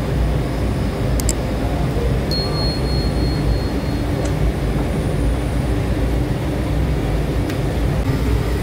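Automatic taftoon bread machine running, its dough rollers and conveyor giving a steady low mechanical drone. A couple of sharp clicks come about a second in, and a thin high whine holds for about two seconds soon after.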